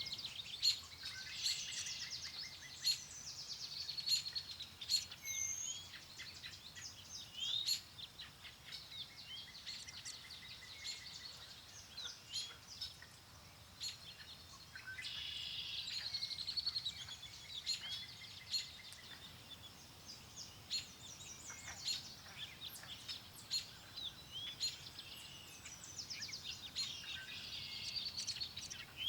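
Several songbirds chirping and singing at once, with quick trills and short whistled notes overlapping throughout, over a soft, steady low wind.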